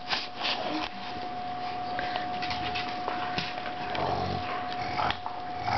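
Dog playing tug-of-war with a rope toy, rustling and jerking it, then growling low from about four seconds in.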